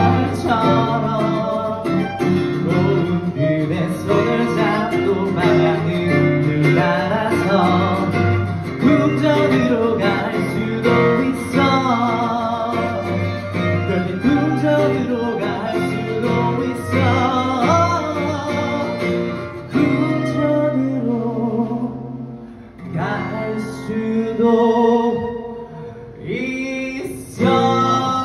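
Acoustic guitar and violin playing a slow pop ballad, with a man singing into a microphone. The music thins out briefly about three-quarters of the way through, then comes back in.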